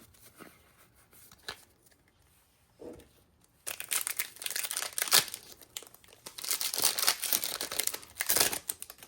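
Foil wrapper of a Pokémon card booster pack crinkling and tearing as it is opened by hand, in two spells of crackling that begin about four seconds in.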